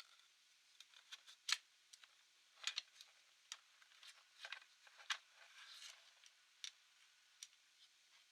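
Faint, irregular small clicks, taps and brief scrapes of hands working on a laptop's plastic and metal parts with small tools. The sharpest click comes about one and a half seconds in.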